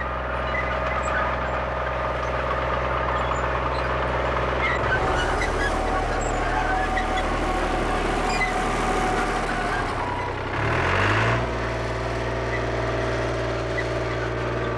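Small vineyard tractor engine running steadily while it pulls an automatic hoe between rows of vines, with a short rise in engine pitch about ten and a half seconds in.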